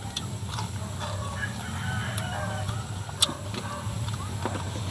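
Chickens clucking nearby, short wavering calls from about one to three seconds in, over crisp fried fish being bitten and chewed, with scattered sharp clicks and a louder one about three seconds in.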